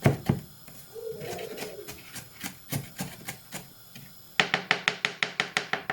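A fast, even run of sharp clicks or taps, about eight a second, begins near the end over a steady low hum. Before it come a few scattered knocks and a short squeak about a second in.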